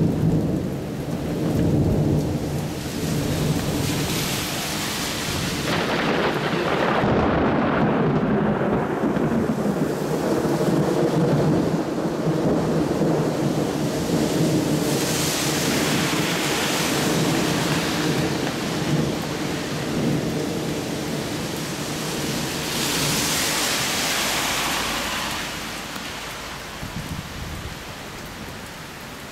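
Heavy downpour with long rolling thunder rumbling through it, in several swells; the storm quietens near the end.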